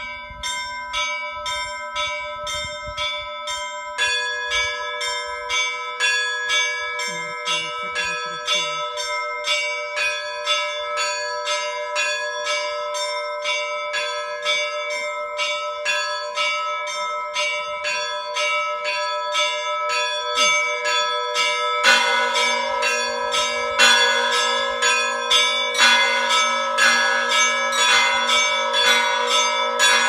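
Orthodox church bells ringing a zvon: several bells of different pitches struck in a quick, rhythmic pattern of a few strokes a second, their tones ringing on. About two-thirds of the way through a deeper bell joins and the ringing grows louder.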